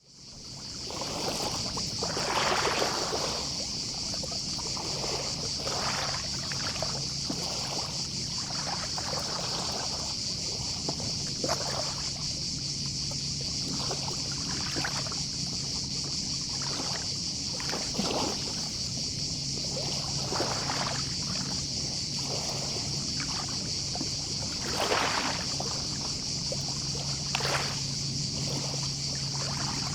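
Small sea waves lapping and washing onto the beach every few seconds, over a steady high chorus of distant cicadas. A faint low hum comes and goes underneath. The sound fades in at the start.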